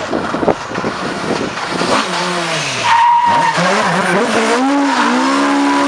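Mk2 Ford Escort rally car driven hard through a corner, its engine revving up and down with the throttle and gear changes while the tyres squeal. Near the end the revs climb and hold high as the car slides sideways with its wheels spinning.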